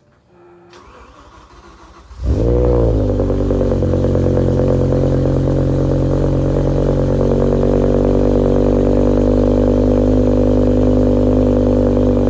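BMW E60 M5's V10 engine, fitted with a Tubi exhaust, cold-starting. After a couple of quieter seconds it catches with a short rev flare, then settles into a loud, steady high idle.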